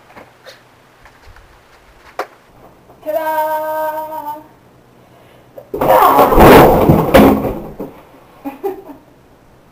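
One voice holds a single sung note for about a second and a half, then a tall stacked tower of shoeboxes and cardboard boxes comes down in a loud clatter lasting about two seconds, with a few light knocks of boxes settling after.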